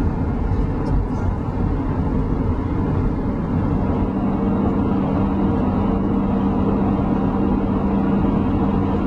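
Steady road and engine noise heard from inside a car's cabin while driving at highway speed, with a steady hum that comes in about three and a half seconds in.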